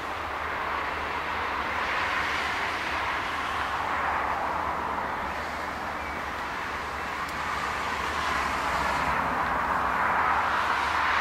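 Steady rushing of distant traffic that swells and fades several times, over a low steady hum.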